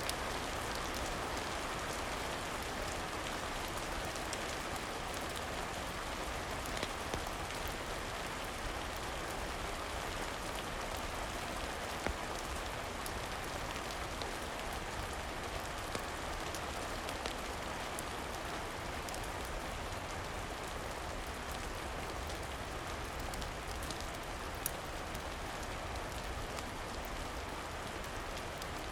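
Steady rain falling, an even hiss of drops, with a few scattered sharp clicks.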